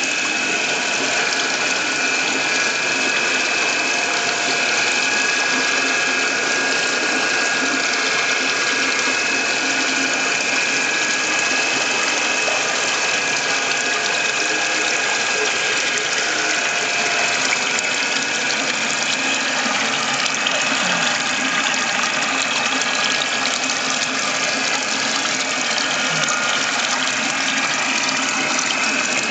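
Steady rushing of moving pond water with a constant mechanical whine, typical of a pond pump and water flow heard through a submerged microphone.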